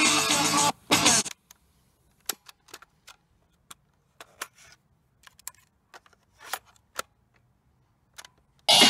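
Music from a Sanyo Little Mini cassette radio cuts off about a second in as the tape is stopped. There follows a string of sharp plastic clicks and clunks from the player's keys and its cassette door being opened and shut around the tape. Playback starts again just before the end.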